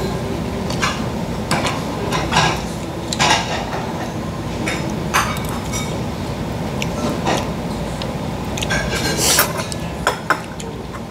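Metal spoons and chopsticks clinking and knocking against ceramic bowls and plates while people eat: scattered short clinks, roughly one every second or two, over a steady low background noise.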